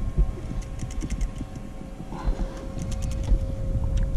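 Fishing reel clicking lightly and irregularly as a fish is played in, over a low rumble from the boat and wind, with a faint steady whine.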